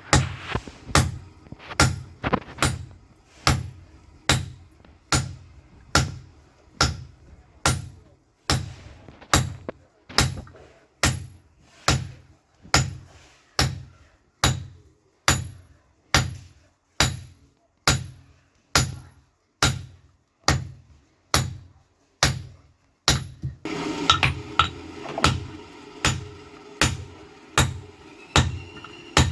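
Hammer blows on steel at an anvil in a steady rhythm, about one and a half a second, each with a short metallic ring, typical of hand forging. About three quarters of the way through, a steady background sound with held tones joins.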